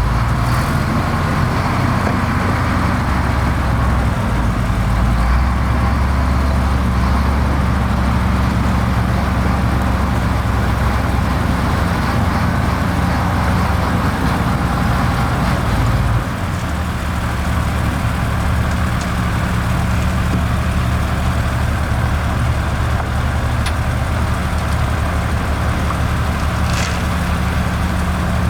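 Heavy diesel engine of construction machinery running steadily, with a deep drone. Its note shifts and drops slightly about sixteen seconds in, and there is a brief hiss near the end.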